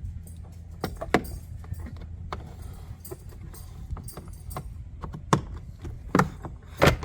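Plastic glove box of a Ford F150 being shut and worked to check that it closes over a newly routed wire: a string of clicks and knocks, the loudest about five to seven seconds in, over a steady low hum.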